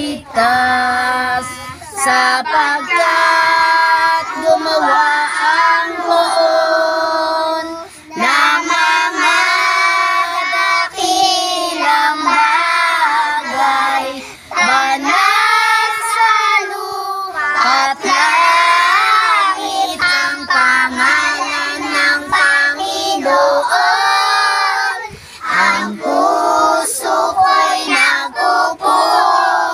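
A group of children singing together in unison, in long sung phrases with short pauses for breath between them.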